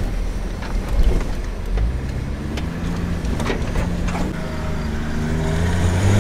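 An off-road 4x4's engine running, heard from inside the cabin while driving on a rough track, with a few short knocks. The engine's steady note comes through more clearly from about two seconds in.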